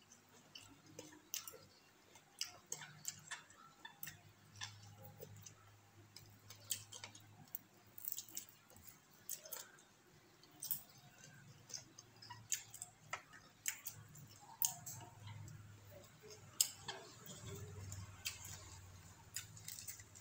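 Mouth sounds of eating close to the microphone: chewing and lip smacking, heard as irregular soft clicks several times a second, with a faint low hum at times.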